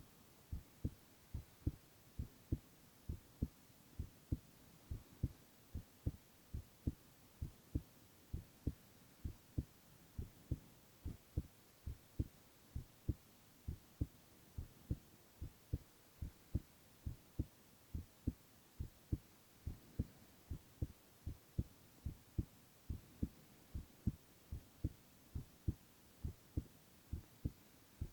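A man's heartbeat heard up close, a steady run of low, paired lub-dub thumps at a little over one beat a second.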